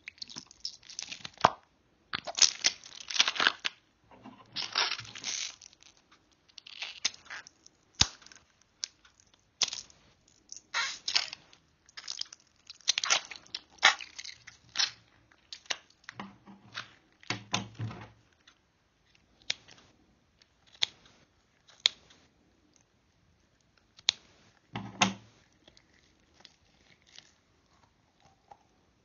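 Slime squelching and crackling as it is squeezed and worked around a mesh stress ball by hand, in irregular wet bursts that are busiest in the first half and thin out later. A single sharp click comes about eight seconds in.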